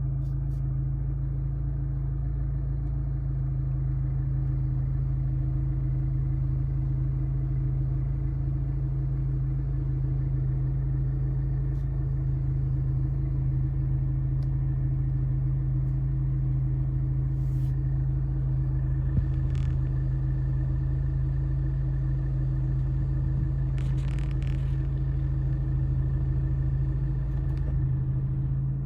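Abarth 595's 1.4-litre turbocharged four-cylinder idling steadily with the air conditioning on, a constant low drone. This A/C load at idle is what sets the steering wheel shaking.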